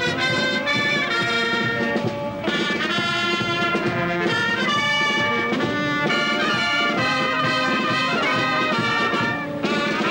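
Brass band music, with held notes changing in a running melody and short breaks between phrases about two and a half seconds in and near the end.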